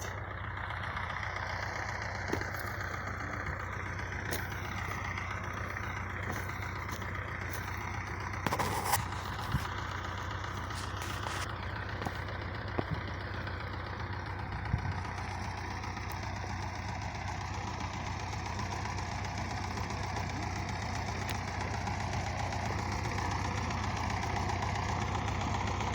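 Tractor engine running steadily with a low, even drone, with a few short clatters over it.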